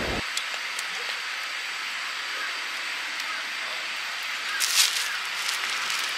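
A steady outdoor hiss with a few faint ticks. Near the end there is a short burst of crinkly plastic-bag rustling as a bag of rice is handled over a mess tin.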